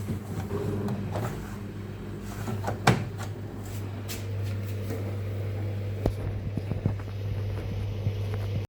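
Rex-Electrolux RJ 7160 TA washing machine running with a steady low motor hum, scattered clicks and knocks, and one sharp loud knock about three seconds in.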